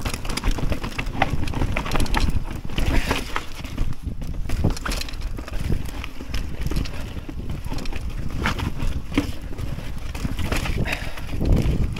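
Mountain bike riding down a rocky trail: a steady low rumble of tyres on the ground with irregular knocks and rattles as the bike jolts over stones.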